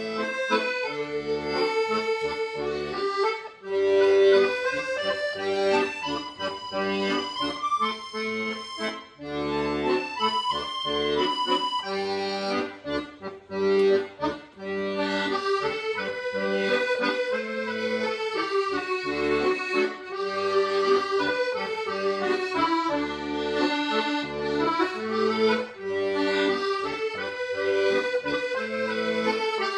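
Accordion playing a melody over a steady pulsing bass-and-chord accompaniment.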